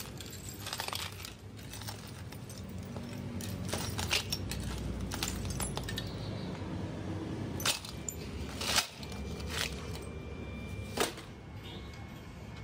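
Loose scrap steel bolts and nails clinking and clattering as they are raked and scooped into a metal pan, with several sharper metallic clanks among them. A low steady rumble runs underneath.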